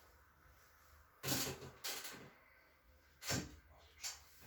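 A few short thuds and rustles of a body being moved during a chiropractic adjustment, the loudest about a second in.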